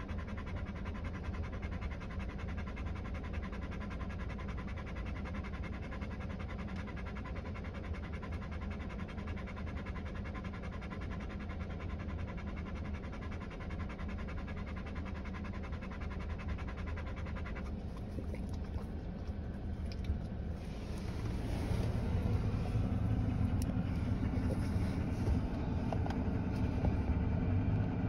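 Car engine running steadily, heard from inside the cabin as a low rumble. About twenty seconds in it gets louder and rougher as the car gets under way, with road noise.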